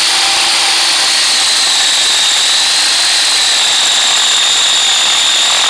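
Electric drill boring a hole into the wooden stump seat, running continuously with a steady whine over a hiss of cutting.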